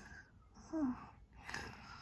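A child's quiet breathy vocal noises: a short falling voiced sound a little under a second in, then a longer breathy exhale.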